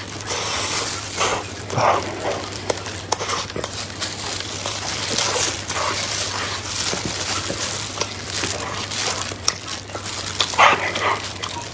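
Wet chewing and mouth sounds of soft chocolate cake being eaten, with a few short yelp-like calls now and then, the loudest near the end.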